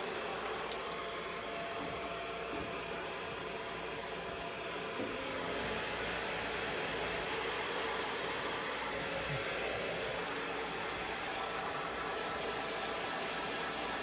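Handheld hair dryer blowing steadily, drying a long-haired cat's fur; the rush of air gets a little louder and brighter about five seconds in.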